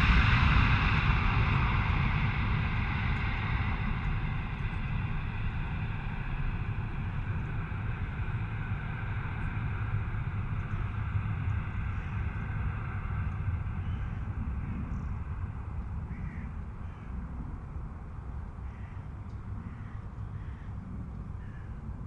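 Rumble and rush of a high-speed train dying away after it has passed, fading steadily. Near the end a bird calls several times over the fading rumble.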